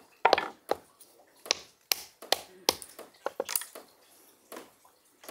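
Hammer cracking walnut shells on a folded towel: about six sharp knocks in the first three seconds, then lighter clicks of broken shell as the pieces are picked apart.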